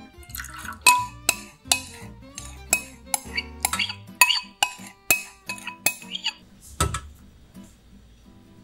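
A metal utensil clinking and scraping against a cooking pot while stirring a milk and egg-yolk mixture as it heats. The clinks are irregular, about two a second, with a short ring after each, and they stop about seven seconds in.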